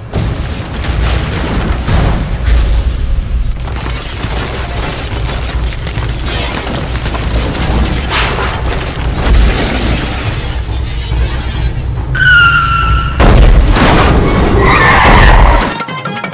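Sound-designed earthquake and building collapse: a deep continuous rumble with repeated booms and crashes of breaking, falling debris, mixed with music. A short high tone sounds about three-quarters of the way through, and the rumble cuts off abruptly near the end.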